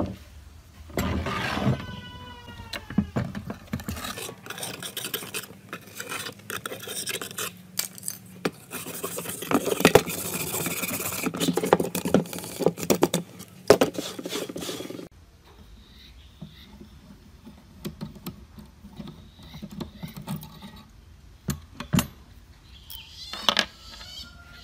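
Steel wire brush scrubbing flaking rust off a small metal part of an old staple gun: a dense, scratchy rasping through the middle that stops abruptly, followed by light clicks of small metal parts being handled. Short animal calls near the start and near the end.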